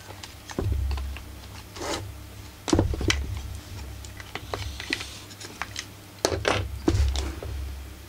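Plastic and metal parts of a stripped-down Husqvarna 44 chainsaw being handled by gloved hands: irregular clicks, taps and light knocks, with low bumps as the saw body shifts on the bench.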